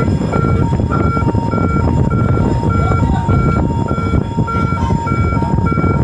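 Ship's electronic alarm sounding, a higher and a lower tone alternating over and over without a break, over a steady heavy low rumble.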